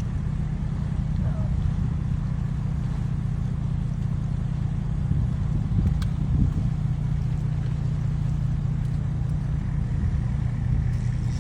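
An engine running steadily with a constant low rumble.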